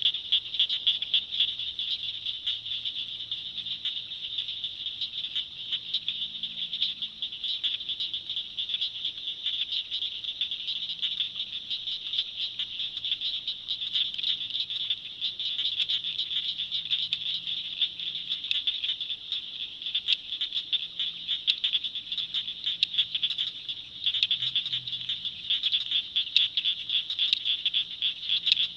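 Dense chorus of frogs calling: a continuous high-pitched mass of rapid clicking, trilling calls.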